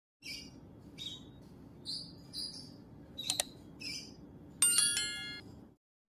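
Alexandrine parakeet giving a run of short high chirps, about six spread over several seconds, over a low steady hum. About four and a half seconds in, a louder chime-like ringing tone sounds for most of a second.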